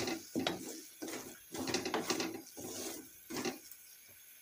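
Wooden spatula scraping and stirring shredded chicken filling in a metal pan, in repeated strokes, fainter near the end.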